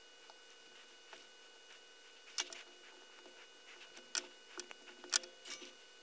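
Soldering on a perfboard: light clicks and taps of the soldering iron tip and wire against the board and its pins, a few sharper clicks in the second half, over a faint steady hum.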